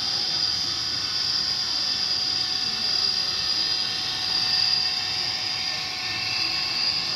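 Model train running on its track: the locomotive's small electric motor and gears whir steadily, with a fine mechanical clatter.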